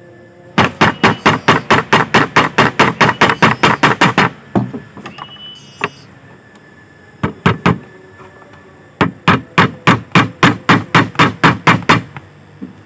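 Small hammer tapping rapidly on a small wooden block, about six light blows a second. The blows come in two quick runs of several seconds each, with a few single taps in between.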